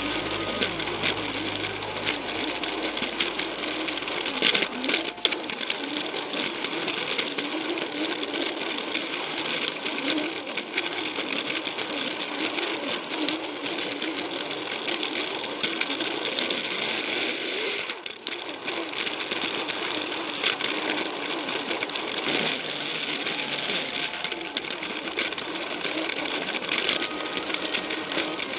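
Battery-powered Plarail toy train's small motor and gearbox whirring steadily, with a fast clatter of its wheels on plastic track, heard up close from a camera riding on the train. The sound dips briefly about two-thirds of the way through.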